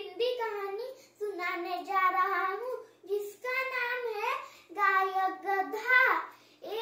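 A young boy's voice reciting a story in Hindi in a sing-song chant, in short phrases with brief pauses between them.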